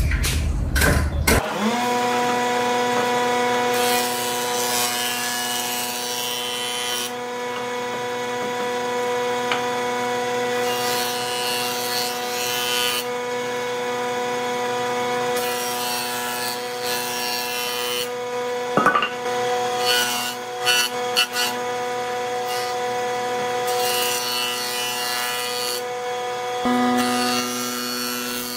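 A low rumble for the first second and a half, then a jointer-planer running with a steady motor hum. A hardwood block is fed across the spinning cutter head about five times, each pass a burst of cutting noise lasting a second or two.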